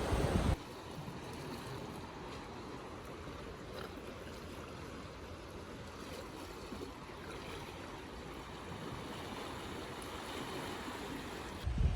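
Steady wash of sea waves on a rocky shore, an even hiss with no gusts. It begins about half a second in, right after a loud burst of wind on the microphone cuts off, and wind buffeting returns just before the end.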